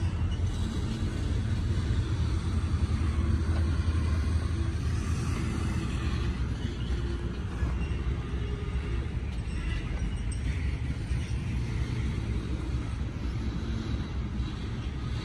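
Freight train cars rolling past, a steady low rumble.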